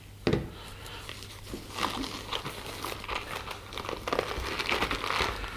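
Hands rummaging in a soft fabric drone carrying case, with rustling and crinkling of the case and packaging and small clicks; a short knock about a third of a second in.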